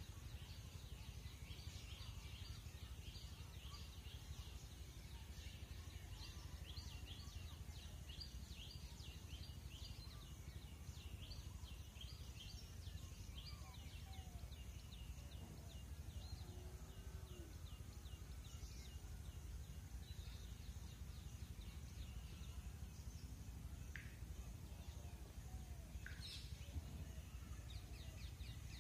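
Faint rural ambience: small birds chirping rapidly and high, thickest in the first twelve seconds and sparser later, over a steady low rumble.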